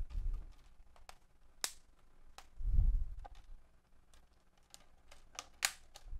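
Asus F510U laptop's plastic screen bezel being pressed back onto the display lid, its clips snapping into place in a string of sharp clicks, with a dull thump about three seconds in.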